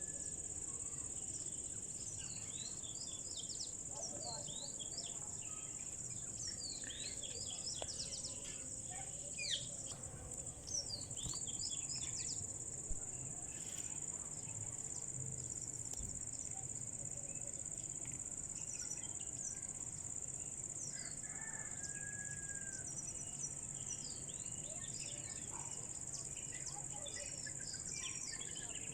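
Birds chirping in quick, short calls, in clusters, over a steady high-pitched insect drone, like crickets or cicadas.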